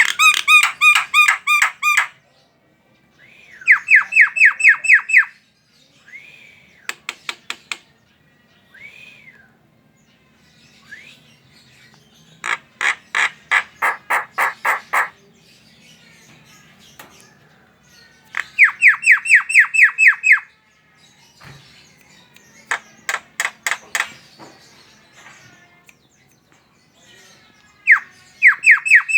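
Javan myna (jalak kebo) chattering in repeated bouts of fast, even, harsh notes, about four to five a second, each bout lasting a second or two, with short pauses between.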